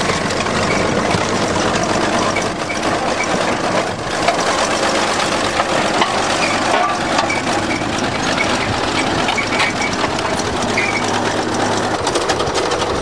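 Bulldozer's diesel engine running steadily, with scattered clicks and knocks over it.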